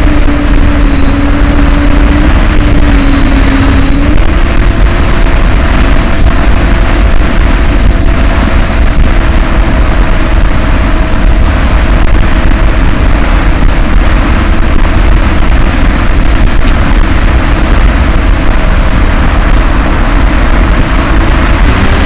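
Electric motor and pusher propeller of a Bixler RC foam plane running steadily in flight, its whine dipping and rising in pitch a few seconds in, under heavy wind rush on the onboard microphone.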